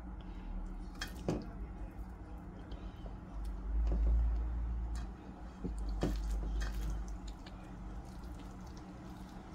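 Wet squishing of bare hands working chili seasoning into cut cucumbers for cucumber kimchi in a stainless steel bowl, with a few light clicks and knocks.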